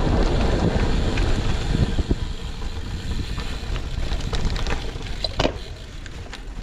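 Wind rushing over the microphone and the bicycle rattling over rough asphalt on a fast downhill, with scattered sharp clicks and knocks. The rush fades gradually as the bike slows toward the end.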